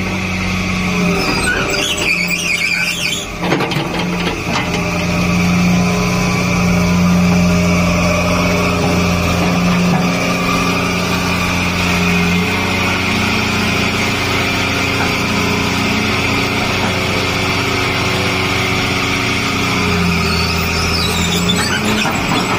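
Diesel engine of a Tata Hitachi 220LC excavator running steadily close by, with a constant high hydraulic whine; the engine note shifts as the machine works. Brief high squeals come early and again near the end.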